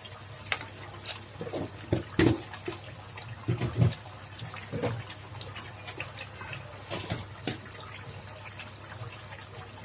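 Onion-garlic masala frying in mustard oil in an iron kadhai with a low steady sizzle, and a spoon knocking and scraping against the pan several times as spice powder goes in.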